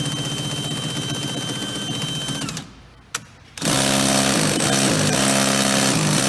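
Power drill running as it bores into a vending machine's lock, stopping about two and a half seconds in with a single click, then starting again and running to near the end.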